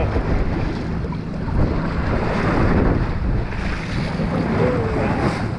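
Choppy sea water sloshing and splashing against a boat's hull, with wind buffeting the microphone and a steady low hum underneath.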